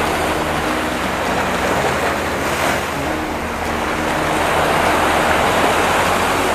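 Steady rush of sea surf washing over a rocky reef shore.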